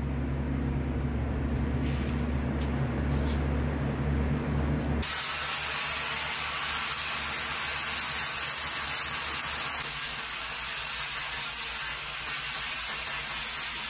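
Angle grinder grinding metal: a loud, steady hissing whine with a thin, very high whistle starts suddenly about five seconds in and runs on. Before it there is only a low steady hum.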